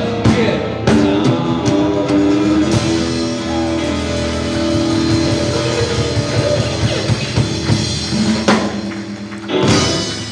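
Live rock band, with acoustic and electric guitars, bass guitar and drum kit, playing the closing bars of a song, ending on a loud final hit near the end.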